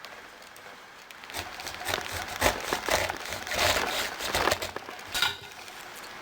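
Irregular crinkling and scraping handling noises, starting about a second in and dying away after about five seconds.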